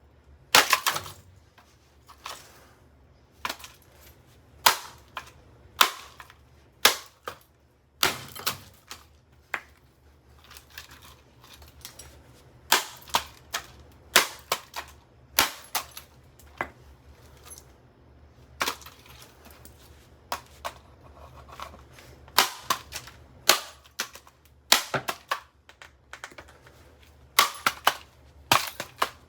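Repeated sharp, irregular impacts as a Revlon RVDA5036 hair dryer's plastic housing is smashed, about one or two blows a second, over a low steady hum.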